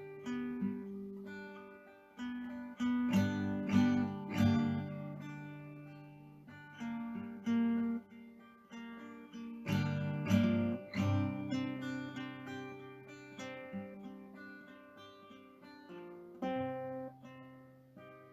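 Background music: acoustic guitar played solo, with plucked notes and strummed chords that ring and fade.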